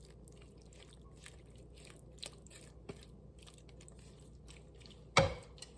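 Raw potato chunks and stir-fried vegetables being stirred together in a bowl: faint crunching and scraping, with one loud knock about five seconds in.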